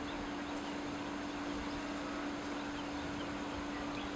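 Outdoor ambience under a storm: a steady hiss with a constant low hum and a few faint, short bird chirps.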